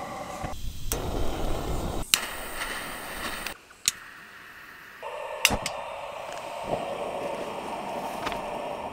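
Camping gas appliances: several sharp igniter clicks, separated by stretches of steady burning-gas hiss, with a steady hiss through the last few seconds.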